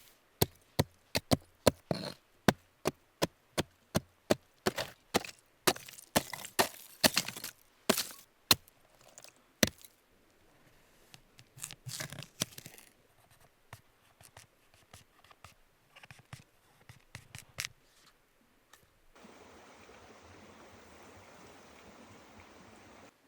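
Knife chopping through black radish on a cutting board, with sharp regular strokes about three a second for the first ten seconds, then scraping and a few scattered knocks. Near the end a steady hiss runs for about four seconds.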